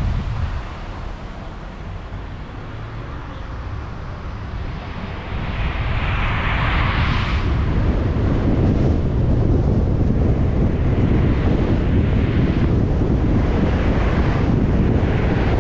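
Wind buffeting the microphone over low road rumble from a car being driven in traffic. The rumble grows louder about five seconds in, and a rush of noise swells and fades around six to seven seconds in.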